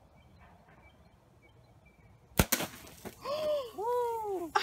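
Compound bow shot: about halfway in, a sharp snap as the string is released, with a second quick click right after. Then two drawn-out calls that rise and fall in pitch.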